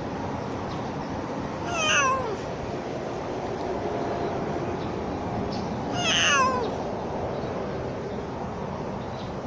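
Orange-and-white tabby cat meowing twice, about four seconds apart; each meow is short and falls in pitch.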